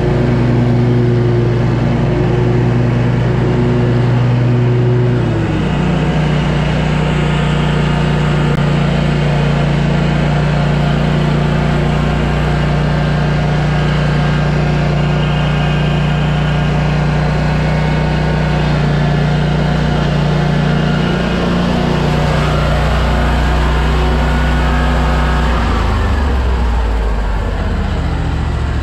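Scag V-Ride II stand-on mower's engine running steadily at working speed. Its note shifts about five seconds in and falls near the end.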